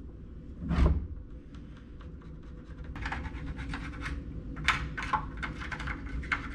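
A single thump about a second in, then from about three seconds in a run of short scratching strokes: a pencil marking the notch cut line on a tongue-and-groove pine board.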